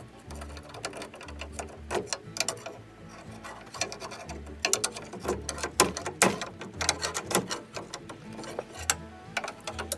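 Irregular metal clicks and clanks of tools working on a pickup truck's front strut and coil spring assembly.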